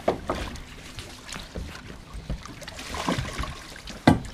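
Scattered knocks and clunks of a landing net's frame and a large fish being handled in a boat's water-filled livewell, with one loud knock near the end.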